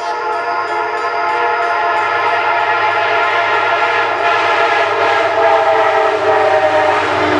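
Nathan K5LA five-chime horn on a GE P32AC-DM diesel locomotive, held in one long continuous blast for a grade crossing and growing louder as the train approaches, with a low train rumble underneath.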